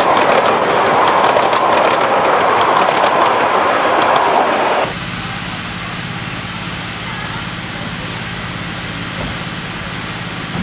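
Miniature steam locomotive loudly hissing steam, cut off abruptly about five seconds in, followed by a quieter steady hiss with a low hum underneath.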